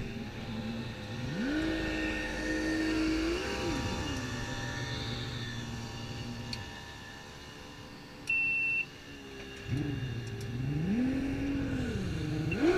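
A river boat's engine revs up twice, each time rising in pitch, holding high for a couple of seconds and dropping back, over the rush of water along the hull as the boat turns around. A short, high steady beep sounds about eight seconds in.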